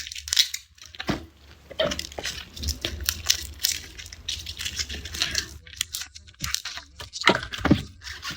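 Garlic being peeled by hand: dry papery skins tearing and crackling, with many sharp, crisp snaps at irregular intervals.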